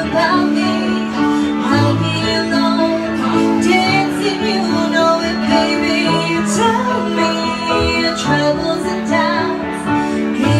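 Live pop-rock band playing: a woman singing lead over amplified electric guitar and drums, with a moving bass line beneath.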